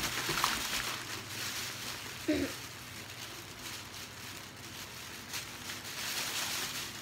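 Plastic packaging rustling and crinkling as items are rummaged through in a cardboard box, with a brief murmur from a person's voice about two seconds in.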